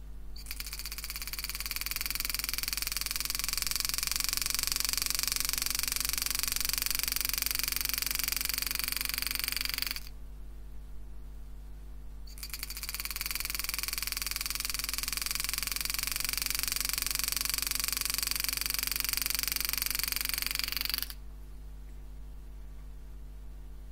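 Homemade hand engraving machine driving a 98-degree carbide graver through 304 stainless steel: a rapid buzzing stream of strikes that builds up over a second or two, runs for about ten seconds, stops sharply, then comes back for about eight seconds more. A steady low hum runs underneath.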